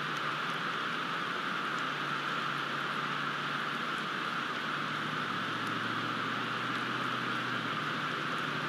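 Steady rain falling, a continuous even hiss, with a faint low hum underneath that stops near the end.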